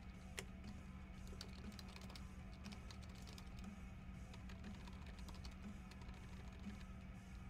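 Typing on a computer keyboard: irregular key clicks, busiest in the first few seconds, over faint background music with a soft beat about once a second.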